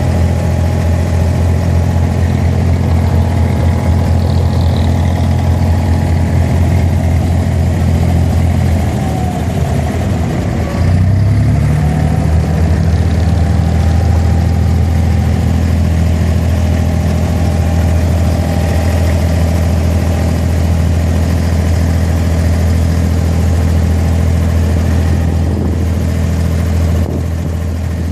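Inboard diesel engine of an abra water taxi running steadily underway, a loud low hum. About nine seconds in it slows briefly, then picks up again about two seconds later and runs on steadily.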